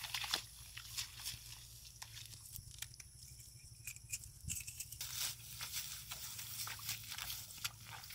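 Grass and dry stalks rustling and crackling in short, irregular bursts as hands and bare feet push through a wet grassy field. The crackling thins out in the middle and picks up again over the last few seconds.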